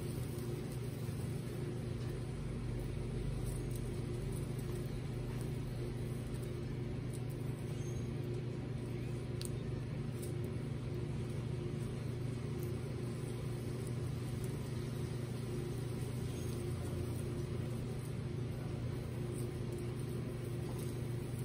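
A steady low mechanical hum holding a few steady low tones, with a handful of faint clicks over it.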